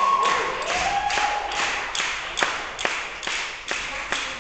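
A steady percussive beat of about two and a half strikes a second keeping time for tarantella dancing. A voice holds a note briefly near the start.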